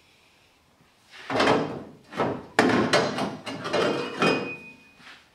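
Stainless steel exhaust mandrel bends scraping and knocking against each other and the car as pipe sections are offered up and fitted together. It is a run of rough scrapes and clanks starting about a second in, with one sharp knock and a brief metallic ring.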